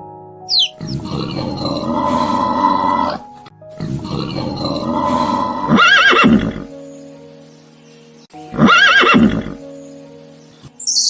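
Horse neighing three times, the last two calls ending in a high wavering whinny, over steady background music.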